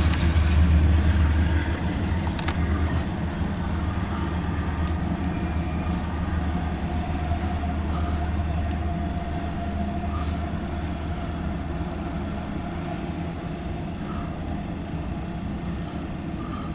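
Norfolk Southern intermodal freight train rolling past: a steady low rumble of wheels on rail with a few scattered clanks, slowly fading.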